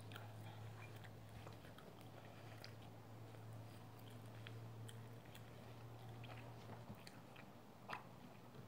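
Faint chewing and biting of bread, with small scattered mouth clicks and a sharper click about eight seconds in. A steady low hum lies underneath.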